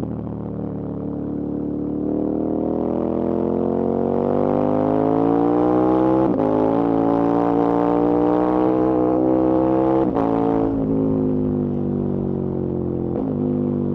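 KTM 1290 Super Adventure S's V-twin engine accelerating hard, its note rising steadily, with quick drops in pitch at two upshifts about six and ten seconds in, then running at a steadier pitch with a brief dip near the end.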